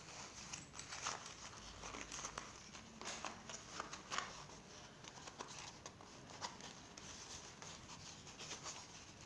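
Fabric rustling and rubbing as a piece of cloth is folded and handled by hand, with scattered small clicks and taps.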